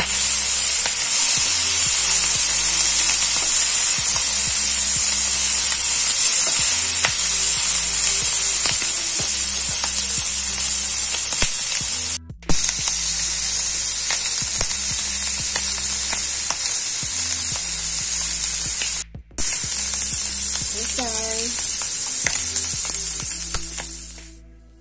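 Squid, onion and butter sizzling hard in a very hot nonstick wok, a steady loud frying hiss with small spatula clicks as the pieces are stirred. The sizzle cuts out briefly twice and fades away near the end.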